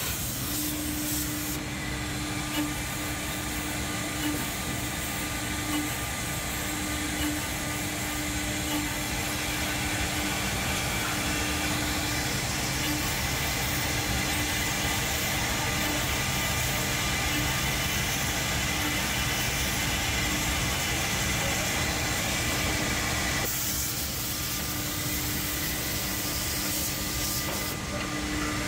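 Two-head CNC horizontal drilling and milling machine running in a steady din, with thin high tones held throughout and a low hum that keeps breaking off and coming back.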